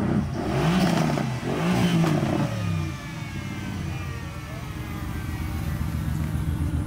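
Mercedes-AMG GT's twin-turbo V8 revved twice, the pitch rising and falling each time, then running at low revs with a pulsing exhaust rumble as the car pulls away slowly.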